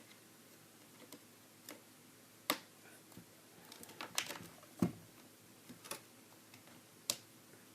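Scattered sharp clicks and taps of plastic playset pieces being handled and fitted together, about half a dozen separate clicks.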